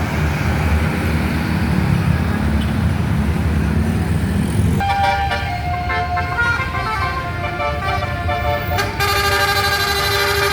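A heavy bus engine running, then about five seconds in a multi-tone telolet (basuri) horn starts up, playing a tune of held notes that step from one pitch to another. It breaks off briefly near the end and comes back as a sustained chord of several notes.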